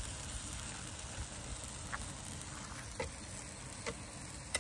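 Pancake batter and butter sizzling on a hot muurinpohja griddle pan over a fire: a steady hiss, with a few short sharp clicks.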